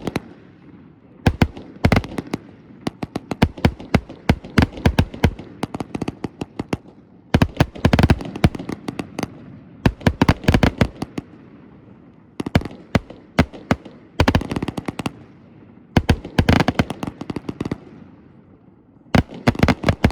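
Consumer firework cakes fused into a finale going off: rapid volleys of launches and aerial bursts, several a second, in clusters with short lulls between.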